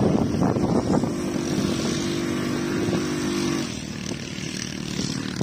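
Quad bike (ATV) engine running with a steady note, which drops away about three and a half seconds in.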